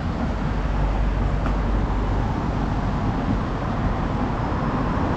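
Steady city road traffic: a constant rumble of passing vehicles, heaviest in the low end.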